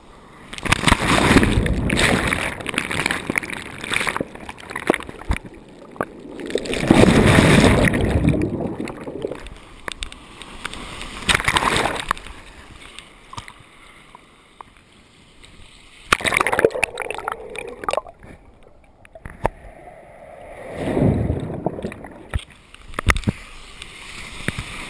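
Whitewater from breaking waves washing over a camera at water level: about five surges of splashing and sloshing with quieter gaps between, some of them muffled and gurgling as the water covers the camera.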